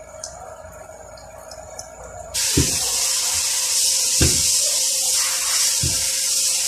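A loud, steady high hiss starts suddenly about two and a half seconds in and keeps going, with three dull knocks under it.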